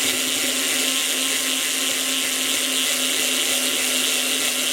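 Small electric drill running steadily with a 3.2 mm bit, drilling holes through a Paxolin circuit-board piece. The motor holds one even pitch under a steady hiss of cutting.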